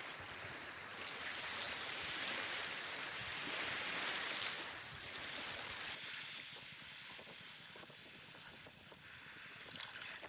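Outdoor beach ambience: a steady rushing hiss for the first six seconds, then, after a cut, quieter small waves washing over a pebbly shoreline with scattered faint clicks.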